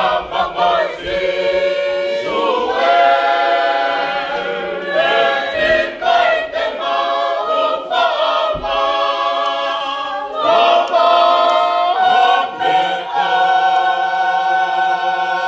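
Tongan church congregation singing a hymn a cappella, many voices in harmony, in long held phrases with short breaths between them.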